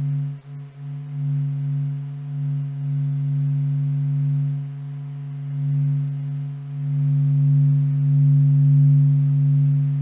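A space sonification presented as the sound of the Sun: a steady low drone of a few held tones, swelling and fading a little in loudness, with two brief dropouts about half a second in.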